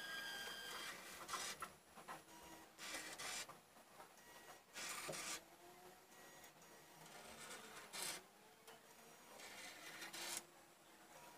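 Small robot built from Cubelets modules and LEGO parts whirring and grinding as its carriage drives along the block tape: several short bursts of mechanical noise a couple of seconds apart, with a faint wavering motor whine between them.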